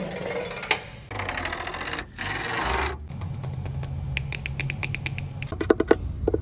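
Fingers rubbing and flicking a Bentley's alloy wheel and its centre cap: three rasping rubs in the first three seconds, then a fast run of light clicks.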